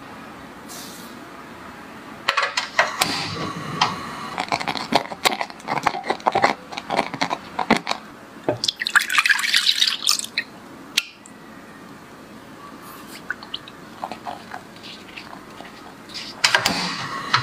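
Spatula stirring diced strawberries with sugar in a ceramic saucepan as they cook down to jam: wet squelching with quick clicks and scrapes against the pot, busiest over the first half. Near the end there is a short rustle of sugar being poured into another pan.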